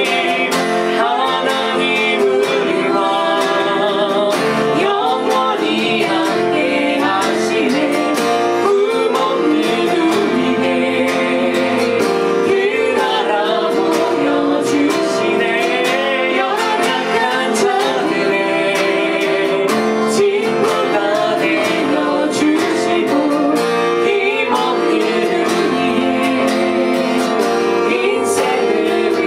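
A woman and a man singing a Korean worship song together, accompanied by an acoustic guitar.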